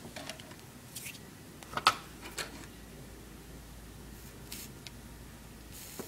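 Light clicks and taps of hands handling solder wire and a soldering iron on a tabletop, with one sharper tap about two seconds in.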